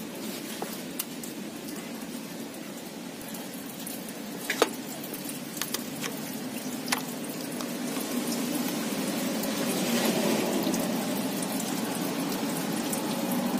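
Coolant running out of the radiator drain into a container, a steady pour that grows louder in the second half, with a few sharp clicks of the hand or tools.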